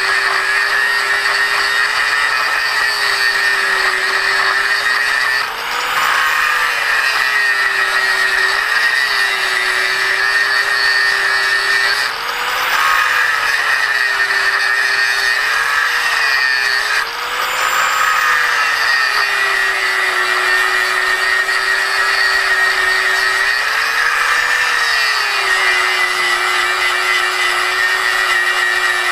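Corded electric angle grinder cutting through the copper windings of a large motor stator, a steady whine over the harsh grinding noise. Several times the whine rises in pitch for a moment as the disc eases off the cut, then settles back under load.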